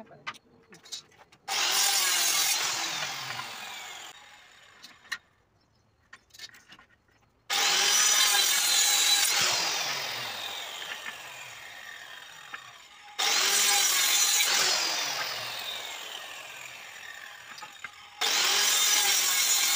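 Handheld electric circular saw cutting through wooden slats four times. Each cut starts suddenly and loud, then a falling whine follows as the blade spins down once the trigger is released. Light wooden clicks and knocks come between the cuts as the pieces are handled.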